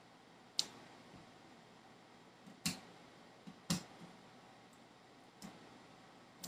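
Plastic salad dressing bottles being handled and set down on a table: four sharp clicks and knocks, one to two seconds apart.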